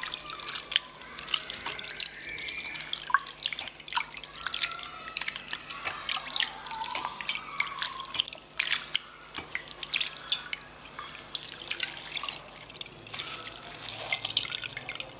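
Hands swishing and squeezing shredded kohlrabi and carrot in a stainless-steel bowl of water, rinsing them: irregular splashes and drips throughout.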